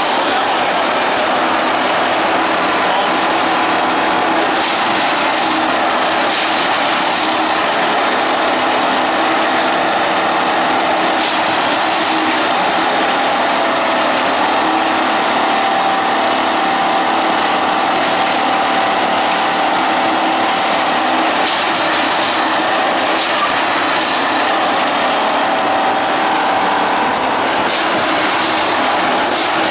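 Plasser Unimat 3S points-and-crossing tamping machine at work, its engine and hydraulics running loudly and steadily while the vibrating tamping tines are driven into the ballast beside the sleepers. A few sharp knocks stand out now and then.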